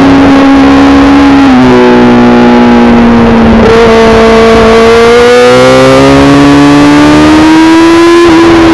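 2003 Yamaha R6's 600 cc inline-four engine at high revs, loud and steady. Its pitch dips about a second and a half in and sags low as the bike slows through a corner. It then climbs steadily under acceleration and drops suddenly near the end at a gear change.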